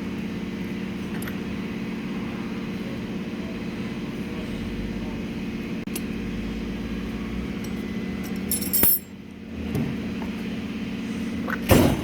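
Steady low machine hum, with loud metallic clatter from tools being handled about nine seconds in and again near the end.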